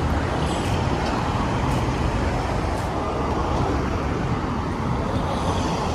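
City street traffic: a steady rumble of road vehicles running past.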